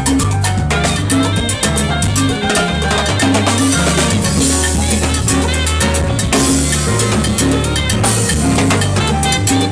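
Live salsa band playing: timbales, congas and drum kit drive a busy percussion rhythm over a repeating bass line, with cymbal washes.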